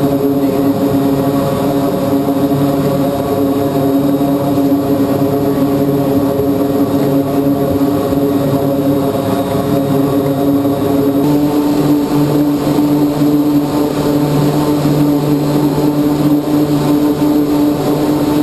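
Grumman C-2A Greyhound's two Allison T56 turboprop engines and propellers running steadily at taxi power, heard from inside the cockpit. The pitch steps up slightly about eleven seconds in.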